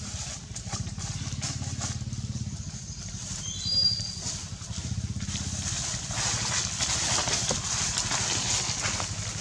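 Dry leaf litter rustling and crackling as macaques walk and crawl over it, over a steady low motor-like drone. A short high squeak comes about three and a half seconds in.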